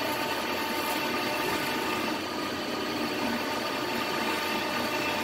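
Metal lathe running steadily while its cutting tool takes a cut in the spinning workpiece: an even machine hum with a few fixed whining tones.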